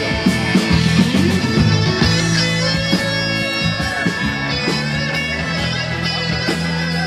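Live rock band playing, with electric guitar over bass notes.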